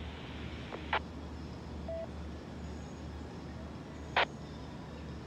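Steady faint background hiss with a low hum, broken by two sharp clicks, about a second in and about four seconds in, and a short single-pitch beep about two seconds in.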